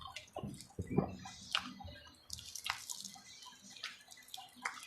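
Close-up eating sounds: wet chewing and smacking with many short crisp crackles and clicks, and a low thump about a second in.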